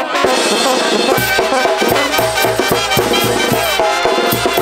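Live brass band music, with no singing: the sousaphone's bass notes pulse in a steady beat under trumpets and other horns, the beat settling in about a second in.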